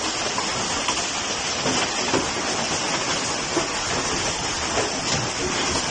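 Heavy hail with rain coming down, a steady dense patter of hailstones striking the ground and the trees, with scattered sharper taps.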